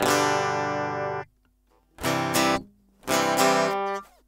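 Music: a strummed guitar playing closing chords. One chord rings on until just over a second in, then after a short gap come two shorter chords.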